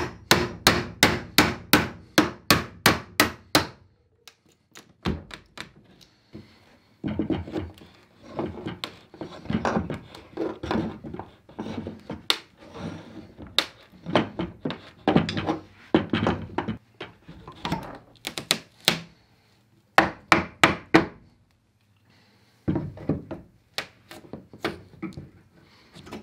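Hammer striking a chisel driven in behind a timber window architrave to pry it off: runs of quick wooden knocks, about three a second, broken by short pauses.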